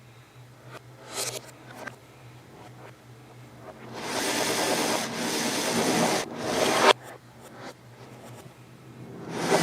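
Rubbing and scraping noises: a short scrape about a second in, then a longer scraping stretch of about three seconds in the middle, broken twice, and another short scrape near the end, over a faint steady hum.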